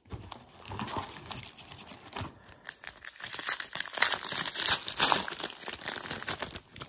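Foil wrapper of a 1991 Pro Set Platinum football card pack being torn open and crinkled by hand: a dense crackling that gets louder about three seconds in.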